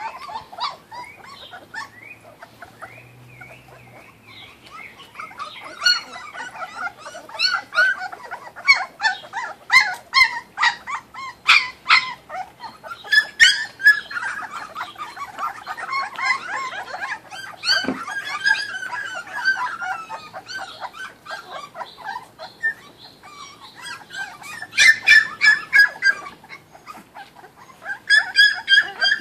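Kuvasz puppies whimpering and yelping: many short, high squeaky cries overlapping, coming in busy flurries through the middle and again near the end, as the litter jostles at a feeding pan.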